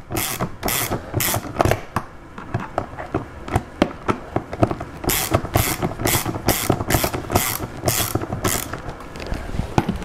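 Hand ratchet clicking in repeated quick strokes as it backs out a Torx screw holding the interior door handle, about two to three strokes a second.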